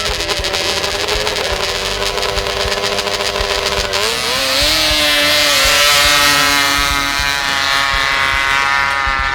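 Snowmobile engine running at high revs, its pitch rising about four seconds in and staying up.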